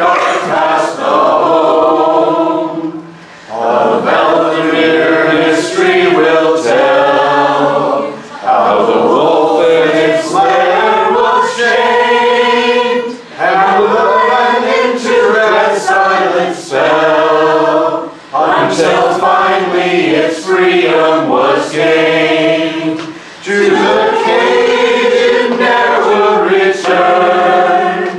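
A group singing a cappella, led by a man's voice, in sung phrases a few seconds long with short breath pauses between them.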